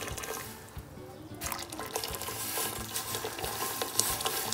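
Water being poured into a steaming pot around a jar, starting about a second and a half in, with a sharp knock about four seconds in.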